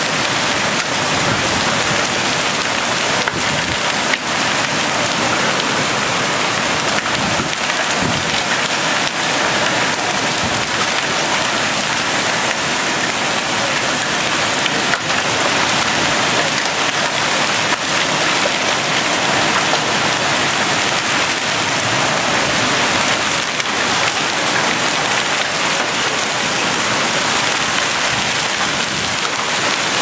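Wind-driven downpour of a severe thunderstorm, with winds of 80–100 mph, lashing against a window screen: a loud, steady hiss of rain with a few sharp ticks.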